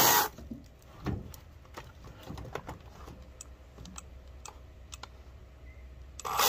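Greenworks GS110 battery top-handle chainsaw's electric motor cutting out just after the start, then a few seconds of scattered light clicks and knocks, and the motor running again near the end. The cut-out is the stalling the saw keeps doing mid-job.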